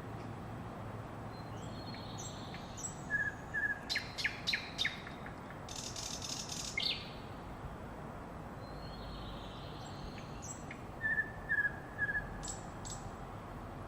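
A songbird singing the same short phrase twice, several seconds apart: a couple of whistled notes, then a quick run of clicky notes and a high trill. Steady low background noise underneath.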